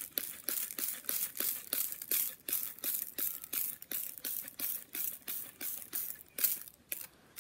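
Hand trigger sprayer squirting water onto a steel bicycle frame in rapid, repeated short hisses, about four squirts a second, with a brief pause near the end.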